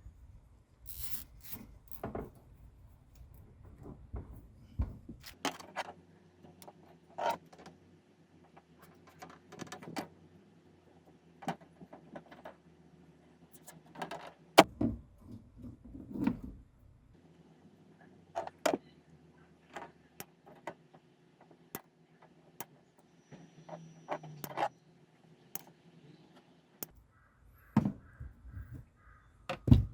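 Irregular clicks, taps and knocks of wire mesh panels and their fittings being handled and fitted together, with a few heavier knocks around the middle and a faint steady hum behind.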